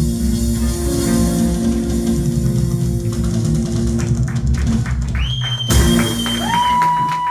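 Live rock band with electric guitar and drum kit playing the close of a song, ending on a loud final hit about six seconds in, with high whistles over the end.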